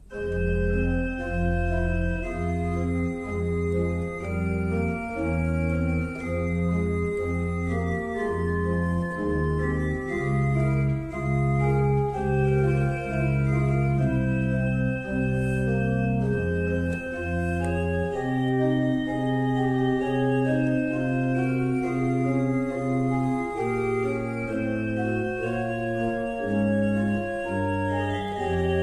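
Organ music: slow, sustained chords over a bass line that moves note by note, coming in suddenly out of silence.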